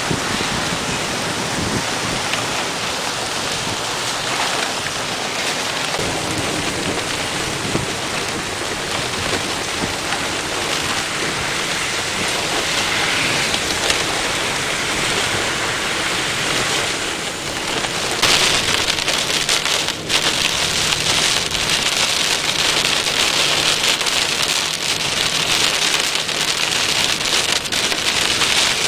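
Heavy rain falling steadily, turning louder and hissier about two-thirds of the way through.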